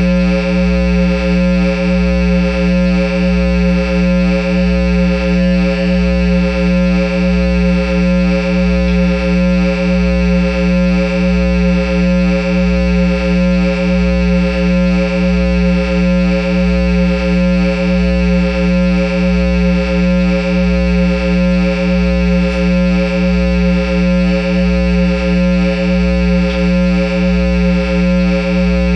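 Line 6 amplifier head playing through a Peavey speaker cabinet, giving a loud, steady droning hum with many overtones that pulses slightly about one and a half times a second.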